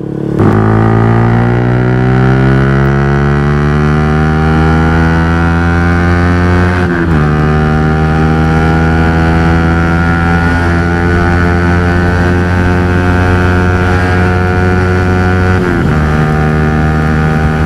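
Yamaha R15 V3's single-cylinder engine running loud through an aftermarket Akrapovic exhaust under hard acceleration. Its pitch climbs slowly, then drops with an upshift about seven seconds in and another near the end.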